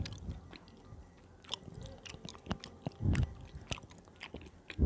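Close-miked chewing of fried banana cake: wet mouth clicks and small crackles of crisp fried batter, with a heavier low chomp about three seconds in.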